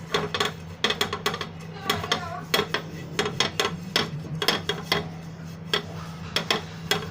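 A spoon clinking and scraping against a bowl in quick, irregular strikes while a batter is mixed with oil.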